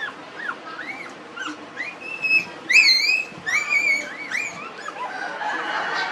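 Puppies squeaking and whimpering: a rapid, continuous series of short, high squeals that rise and fall in pitch, some overlapping.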